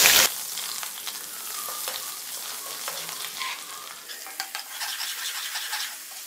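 Ginger-garlic paste sizzling in hot oil in a metal kadai while a metal ladle stirs and scrapes it. A louder sizzle cuts off sharply just after the start, leaving a quieter steady sizzle with light clicks and scrapes of the ladle against the pan.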